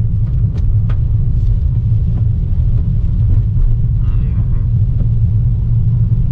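Car driving along, heard from inside the cabin: a steady low rumble of engine and road noise, with a few faint ticks.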